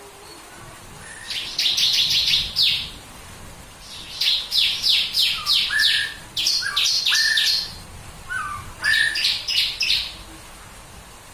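Bar-winged prinia (ciblek kristal) singing its 'tembakan' song: four phrases of rapid, sharp, high repeated notes, with a few short lower whistles between the phrases in the middle.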